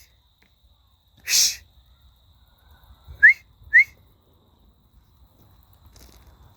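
Three short, rising whistled chirps: one at the very start, then two in quick succession about three and a half seconds in. A brief breathy, hiss-like burst comes about a second and a half in.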